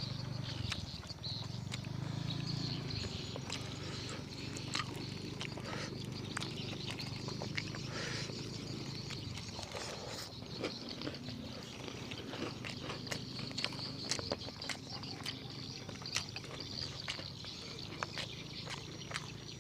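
Close-miked eating sounds: chewing and mouth smacking, with many sharp wet clicks, over a low hum that fades after about three seconds.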